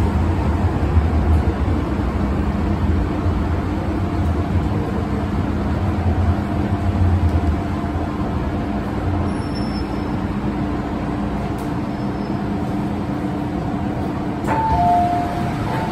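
Interior running noise of a Hong Kong MTR M-train slowing into a station: a low rumble of wheels on rail that fades as the train slows, under a steady motor hum. Near the end comes a click, then a falling two-note chime.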